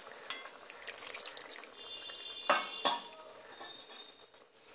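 Metal spatula stirring a thin tomato-and-yogurt curry gravy in a wok, the liquid sloshing and the spatula scraping the pan, with two sharp knocks of metal on the pan about two and a half seconds in.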